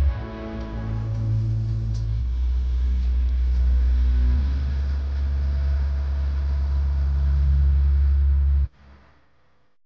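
Background music: deep, sustained synth chords that shift a few times, then cut off abruptly near the end.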